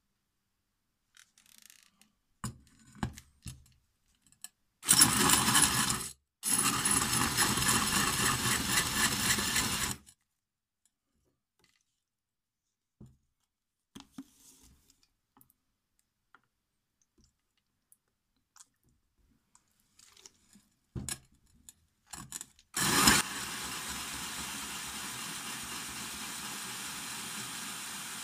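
Power drill running a carbide hole saw that grinds into a ceramic tile, the saw wobbling on its loose centre drill. The drill cuts in two bursts, about five to ten seconds in with a short break. After a stretch of light clicks and handling it starts again near the end and runs steadily, more quietly.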